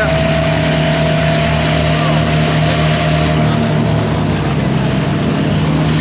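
Small outboard motor running steadily at speed, with water rushing against the hull. A steady higher tone fades out about four seconds in.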